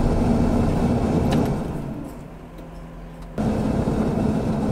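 Car engine hum and tyre noise on a wet cobbled street, heard from inside the cabin. The noise sinks lower about two seconds in, then returns abruptly about three and a half seconds in.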